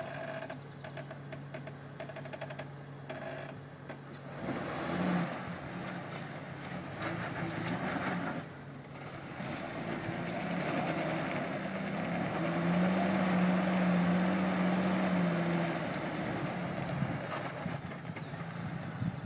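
Jeep engine working under load as it crawls over rocks: a steady low running at first, then revving up and easing off several times, with a longer held rev in the second half.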